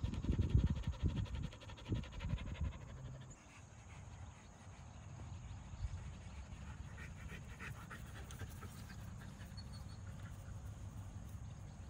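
A dog panting hard close by, in a rhythmic run of breaths that stops about three seconds in, leaving only a faint steady background noise.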